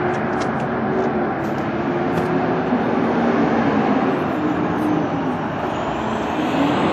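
Steady road traffic noise from vehicles passing on the street, with a wavering engine hum running through it.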